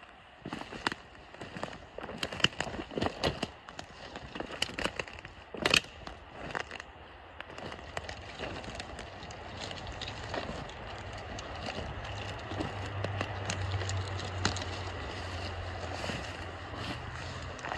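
Footsteps pushing through dry brush: twigs snapping and branches scraping past, with sharp cracks through the first half. From about halfway on the snapping thins out and a steadier rushing noise with a low rumble takes over, swelling a few seconds before the end.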